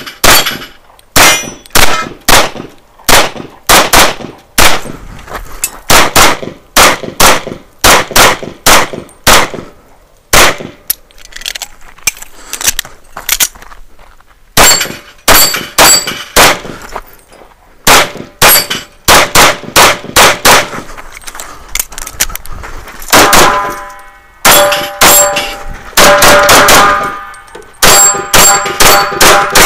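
Rapid fire from an Open-division competition pistol, shots in quick strings with a few-second lull about ten seconds in. In the last several seconds many hits ring out briefly after the shots, the sound of steel targets being struck.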